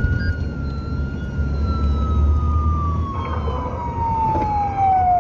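Police patrol car's siren holding a steady wail, then falling slowly in pitch over the last few seconds, heard from inside the moving car over its engine and road noise.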